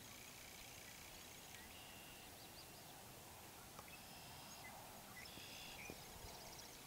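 Near silence: faint outdoor hiss, with faint high steady tones that come and go several times.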